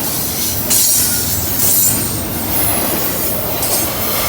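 A long train's cars rolling past at close range, loud and steady, with metal wheels squealing on the rails in high streaks that come and go and a clatter of wheels over the track.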